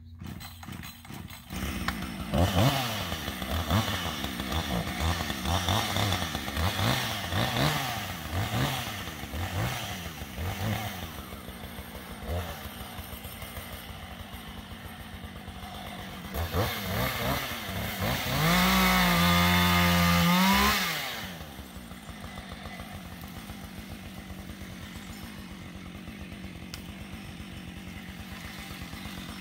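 Husqvarna two-stroke chainsaw being revved up and down over and over, then idling. It is held at full throttle for about three seconds, then drops back to a steady idle.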